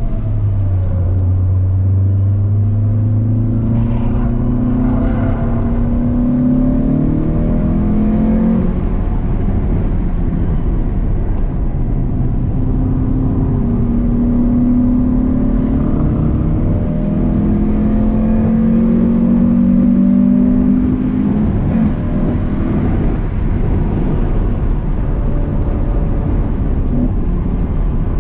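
Renault Clio 182's 2.0-litre four-cylinder engine heard from inside the cabin under hard acceleration on track. Its note climbs in pitch several times and drops back between climbs, over road and wind noise. About twenty seconds in the engine note fades and the road and wind noise take over.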